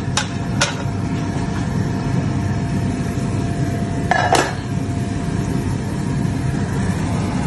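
Metal cutlery clinking twice against a plate and spoon rest, then a louder clatter of a steel pot lid being lifted a little after four seconds, over a steady kitchen hum.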